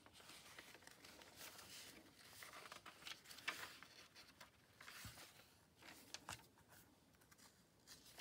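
Faint rustling and soft flicks of old, browned paper pages being turned and fanned through in a small hardback book.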